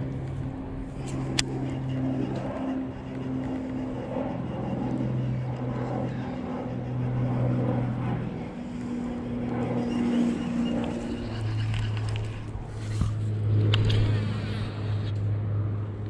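An engine runs steadily nearby, a low hum that shifts pitch now and then and settles lower about eleven seconds in. Sharp clicks come about a second and a half in and again near the end.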